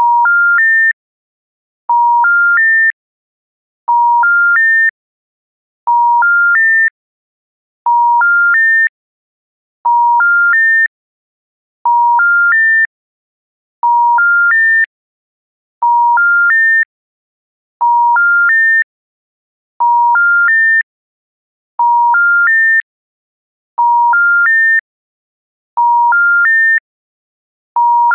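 Telephone special information tone: three short steady beeps stepping up in pitch, each about a third of a second, then a one-second pause, repeating every two seconds. It is the call-progress signal that a call cannot be completed for reasons other than busy or congestion, and it comes before a recorded failure announcement.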